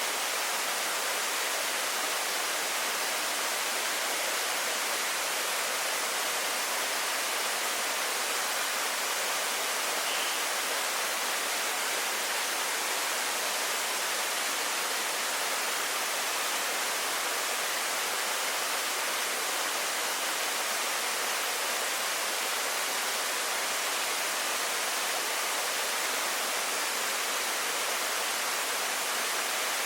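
Waterfall: a steady, even rush of falling water, bright and hissy with little deep rumble.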